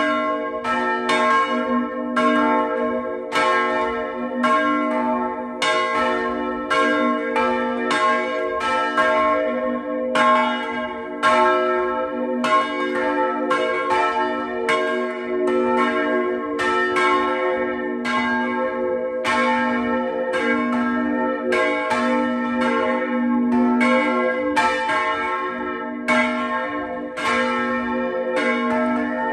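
Somero church's bells ringing together in a swinging peal, strikes from several bells overlapping in an uneven pattern about once or twice a second over a continuous hum of ringing tones.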